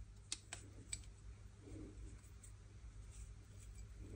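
Faint, sparse clicks and light scratching of a small screwdriver turning a small screw through its thread in an aluminium hydraulic disc brake lever.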